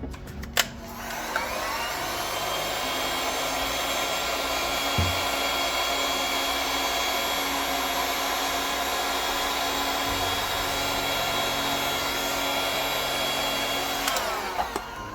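Handheld hot-air blower (heat gun or hair dryer) spinning up about a second in, running steadily with a whine, then winding down near the end, blowing over wet resin to spread the white into foam-like cells.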